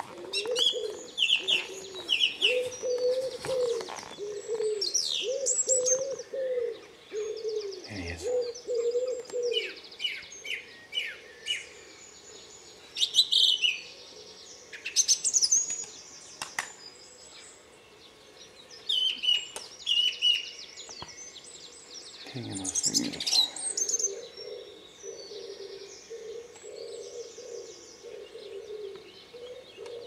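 A nightingale singing in a dawn chorus: varied phrases of rapidly repeated high notes and trills, broken by short pauses. Under it, a pigeon coos in a low rhythmic pattern during the first third and again near the end.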